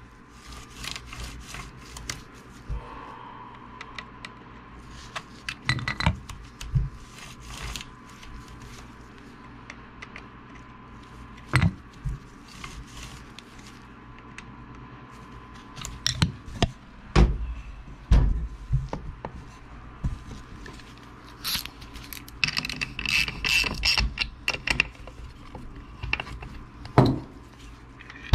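Hand work on a chainsaw's bar and chain: scattered metallic clicks, clanks and knocks, with a stretch of rattling scraping about two-thirds of the way in.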